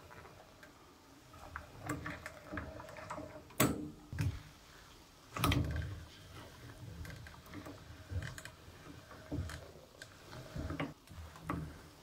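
Wet, soapy laundry being squeezed through the rollers of a vintage Hoover washing machine's wringer: irregular clicks, creaks and squelches, with two louder knocks about three and a half and five and a half seconds in.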